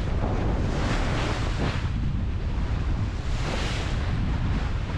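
Wind buffeting the microphone with a steady low rumble, over the rush of water along a sailing yacht's hull as it beats into the waves, swelling twice in hissing surges.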